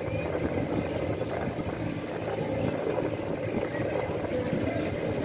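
Small motorboat's engine running steadily as the boat cruises along.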